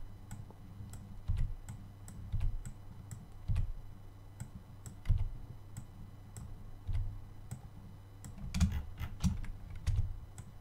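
Computer mouse and keyboard clicking at irregular intervals, several of the presses with a dull low thump.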